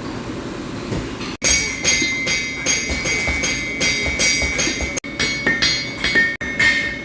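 Hand hammer striking hot steel on an anvil in quick regular blows, about three a second, each with a bright metallic ring, while forging a small hook. A steady low rumble runs under the first second or so before the hammering starts.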